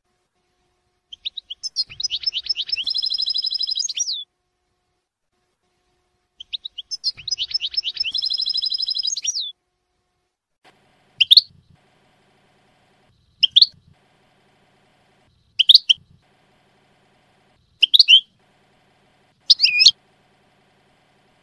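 European goldfinch singing: two rapid, buzzy trilled phrases of about three seconds each, then five loud single rising call notes about two seconds apart. The uploader labels the song as the Shami (Levantine) style.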